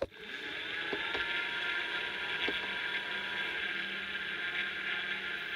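HP Pavilion zx5000 laptop powering on with a weird, steady whirring noise from its cooling fan, with a faint whine between about one and three and a half seconds in and two light clicks. The owner takes it for a worn-out cooling fan, a common problem on these laptops.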